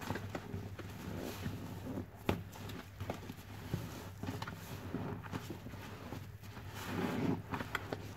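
A sponge full of thick soap foam being squeezed and kneaded by hand: wet squelching with the crackle of suds, in irregular squishes. One sharp squelch a little over two seconds in; the squishing grows louder near the end.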